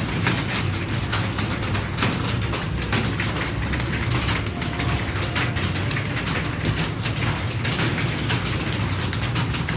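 Many computer keyboards being typed on at once, a dense, continuous clatter of key clicks, over a steady low hum.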